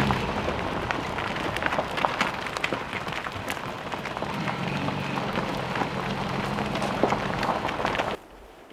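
Vehicle rolling slowly on a gravel road: tyres crunching and crackling over loose gravel above a low, steady engine hum. The sound stops abruptly about eight seconds in.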